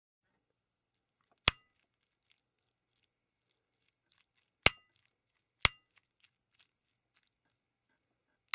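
Hard kitchenware knocking together three times, sharp clicks with a brief ringing, amid faint small handling clicks.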